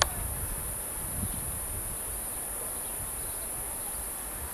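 A steady, high-pitched chorus of insects, with a low rumble underneath and a sharp click right at the start.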